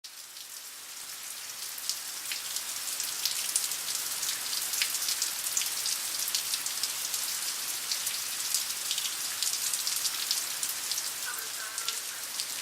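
Heavy rain from a summer thunderstorm falling steadily on hard surfaces, with many sharp individual drop hits over a dense hiss. It fades in over the first couple of seconds.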